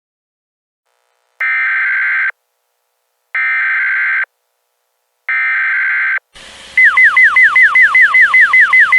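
Emergency Alert System header: three identical one-second bursts of SAME data tones, about two seconds apart, then near the end a loud alert tone of rapid falling chirps, about five a second.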